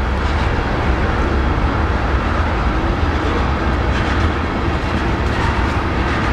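Railroad tank cars of a freight train rolling past close by: a steady rumble of steel wheels on the rails, with a few faint clicks from the wheels.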